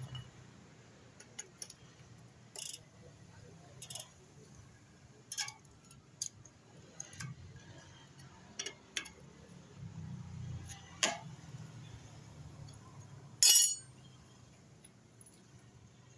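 Scattered metallic clinks and clicks of hand tools and metal engine parts being handled, with one louder clank about thirteen seconds in, over a faint low hum.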